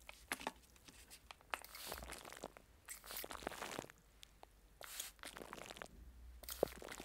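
Cling film wrapped over a microphone crinkling and crunching as fingers rub and press it, in irregular bursts with sharp clicks, close to the microphone.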